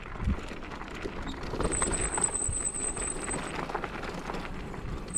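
Kick scooter rolling along a rough path, its wheels and frame rattling with irregular knocks. A thin, steady, high-pitched whine sounds for about two seconds in the middle.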